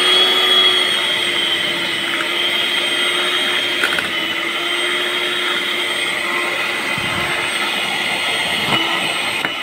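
Electric hand beater running steadily, mixing the whipped cream for mango ice cream: one even motor hum with a high whine, at a constant speed.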